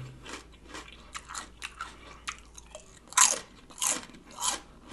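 A person biting and chewing crunchy food, a series of short crunches with several louder bites in the second half.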